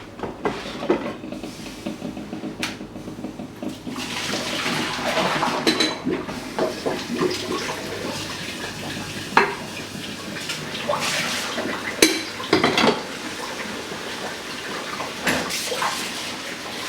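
Tap water running at a sink while the coffee maker's carafe is rinsed out of its vinegar, with clinks and knocks of the pot against the sink. The water runs from about four seconds in.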